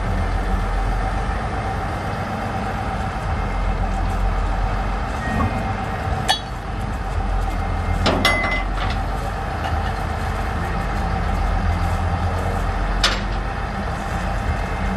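Barge engine running steadily, with three sharp metal clanks as the sand pipe coupling is worked loose.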